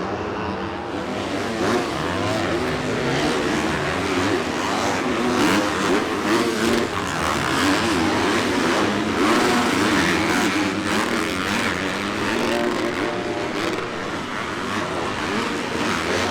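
Several dirt bike engines revving on a supercross track, their overlapping pitches rising and falling as the bikes accelerate and shut off.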